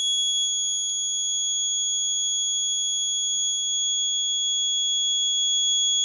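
Electronic alarm buzzer on a one-touch safety-alarm circuit board, sounding one steady high-pitched tone without a break: the panic alarm has been set off and is on while the device sends its SMS alerts.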